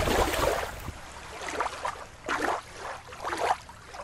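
A plastic toy fish splashing into shallow river water, followed by water noise and several brief watery surges about a second apart.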